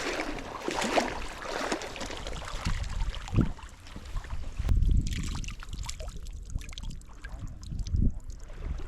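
Water splashing and sloshing as a hooked trout is brought into a landing net, with low gusts of wind buffeting the microphone a few times.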